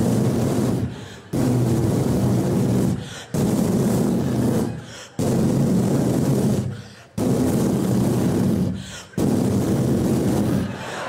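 A performer's voice into a microphone, making the sound effect of a horse galloping flat out: a loud surge that starts suddenly and fades, repeating about every two seconds.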